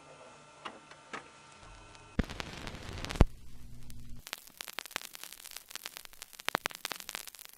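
Crackling static over a low hum, with two sharp clicks near the start and then a dense run of crackles and pops.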